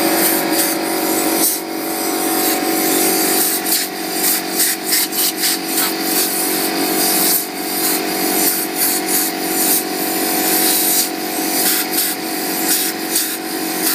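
Compressed air hissing from an air compressor's hose nozzle in many short bursts. A steady hum runs underneath.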